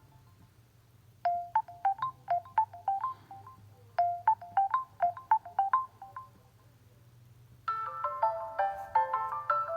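Nokia Lumia 520 ringtone playing: a short melody of quick, bright, fading notes, heard twice with a brief pause between. Near the end a different, fuller ringtone with more notes at once begins.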